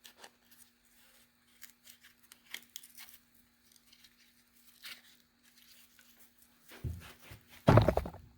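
Small metallic clicks and scrapes of pliers working the spring onto a timing belt tensioner roller assembly, then a louder clunk and rattle near the end.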